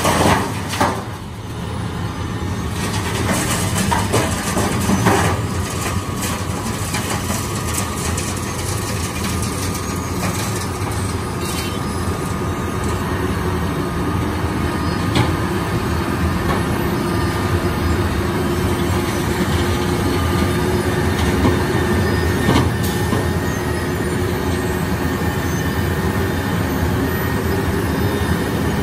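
Wirtgen W 120 CFi compact cold milling machine at work: its diesel engine running under load while the milling drum grinds up asphalt pavement, a steady heavy rumble and grinding.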